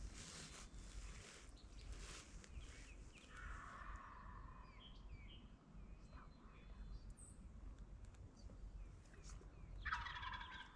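Wild turkey gobbler gobbling, once about three seconds in and again, louder, near the end; the bird is approaching. Small songbirds chirp faintly between the gobbles.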